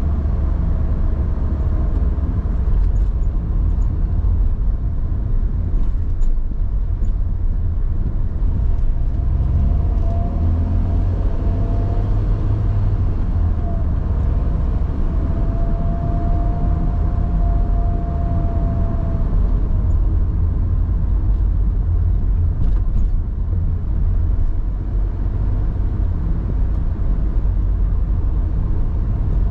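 A car driving on a city street, heard from on board: steady low engine and road rumble. A faint whine holds for several seconds around the middle.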